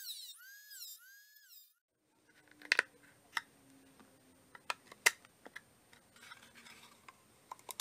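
Corded rotary tool whining as its bit cuts into a plastic battery-pack housing, the pitch dipping and recovering about twice a second as it is pressed in and eased off; it stops a little under 2 s in. Then scattered light clicks and knocks of the plastic case and tools being handled.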